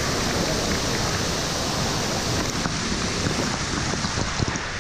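Rushing, churning water of a water park's fast-moving wave river, a steady noise, with a few short splashes near the end.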